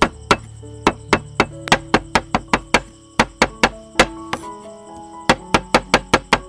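Large kitchen knife chopping cooked octopus on a wooden chopping board: quick, sharp knocks of the blade against the board, about three to five a second, with a short pause a little past the middle. Background music plays underneath.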